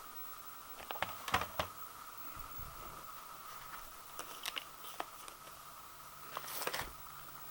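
Scattered light clicks and knocks, a few in quick clusters, over a faint steady hum.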